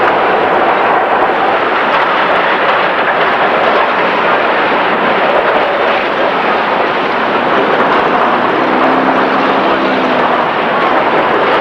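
Steady city street traffic noise, cars passing with the general roar of a busy street.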